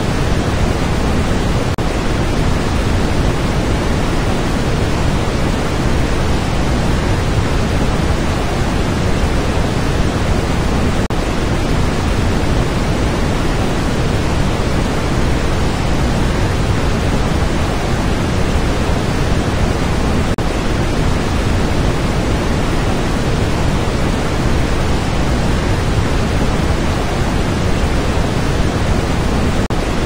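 Waterfall: a steady, unbroken rush of water plunging into a pool and churning over rapids, deep and even throughout.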